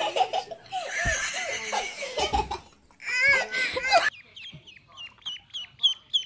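Laughter and a person's voice, then ducklings peeping in quick, high, repeated chirps, about four a second, from about four seconds in.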